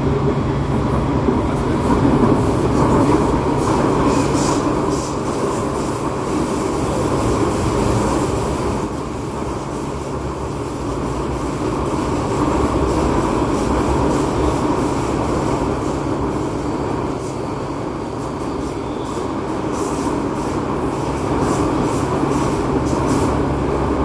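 Interior ride sound of a Vienna U-Bahn Type U2 metro car running at speed: a steady rumble of steel wheels on the rails, with a high wheel squeal and clusters of clicks over rail joints.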